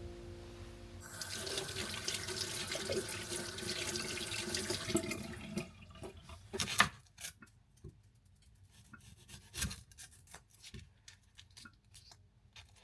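Kitchen tap running into a sink for about four seconds, then shut off. Scattered clicks and knocks of things being handled follow, one sharper knock about two-thirds of the way in.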